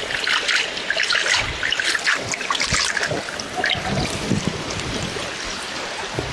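Watermelon juice trickling and splashing, with a busy run of small wet crackles and pops that thins out about halfway through into a steadier flow.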